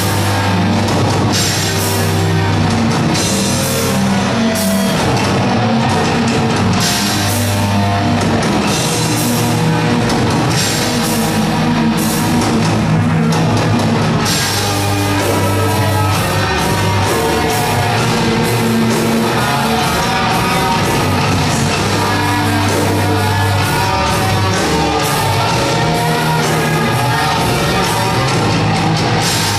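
Metal band playing live and loud: distorted electric guitars, bass and a drum kit with cymbals, dense and without a break.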